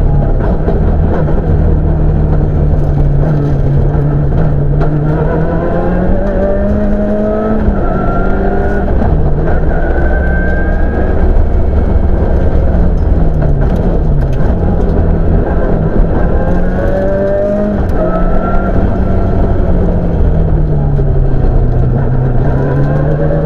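Toyota Celica rally car's engine heard from inside the cockpit under hard acceleration on a stage. The revs climb and fall again and again through gear changes and braking for corners, over a constant low rumble of road and drivetrain noise.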